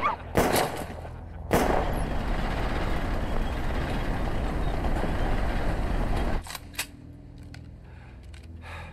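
A few sharp cracks like gunshots, then the steady rumble of a tank and trucks driving in convoy, which drops away about six seconds in.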